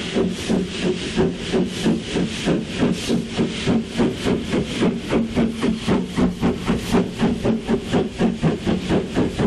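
Lancashire & Yorkshire Railway 0-6-0 steam locomotive No. 957 working a train away, its exhaust chuffing in even beats that quicken from about four to about five a second and grow louder as it comes closer.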